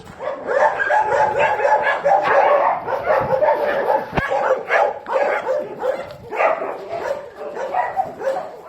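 Dogs barking and yipping in a dense run of overlapping calls, with a single sharp click about four seconds in.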